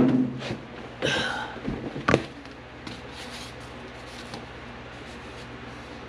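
Things being handled by hand: a knock, a short scrape about a second later, and a sharp click, all in the first two seconds or so. After that there is a steady low hum.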